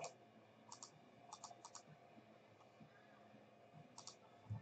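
Faint computer mouse clicks, most in quick press-and-release pairs: several in the first two seconds and one more about four seconds in, as a list is saved on the computer.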